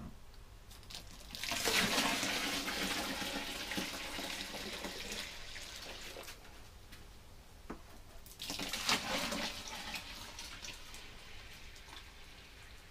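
Water poured from a plastic bucket into a bucket of crushed grapes, a splashing pour that starts about a second and a half in and tapers off, then a second pour into another bucket just past halfway that fades out near the end. The water is being added to the grape must to make a mash for distilling.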